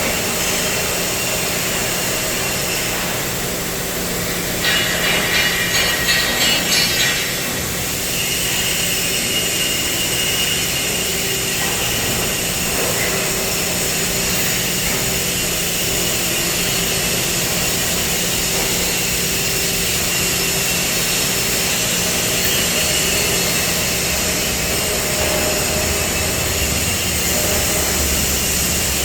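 CNC cutting machine running: a steady loud hiss over a constant hum, with a louder rattling stretch about five seconds in lasting a couple of seconds.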